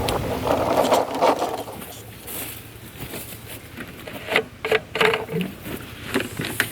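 Petrol lawnmower being started: the engine's steady running dies away about a second and a half in. Several sharp clicks and scrapes of the mower being handled follow.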